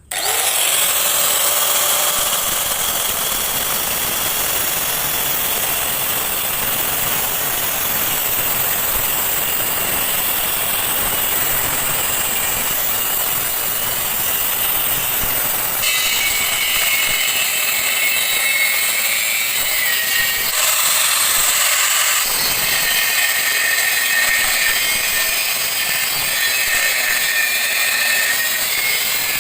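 Hand grinder cutting into the steel shell of a refrigerator compressor to open its cover: a continuous high, hissing grinding whine. Its tone changes about 16 and 20 seconds in, with new whistling pitches appearing.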